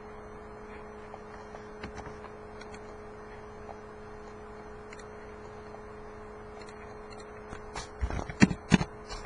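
Steady hum at two fixed pitches, with a few faint clicks, then a quick run of sharp clicks near the end: a computer mouse and keyboard being used.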